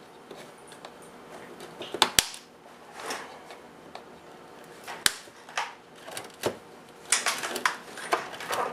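Side cutters snipping thin PC power-supply output wires: sharp snaps, a quick pair about two seconds in and another about five seconds in, then a patter of smaller clicks and wire rustle near the end.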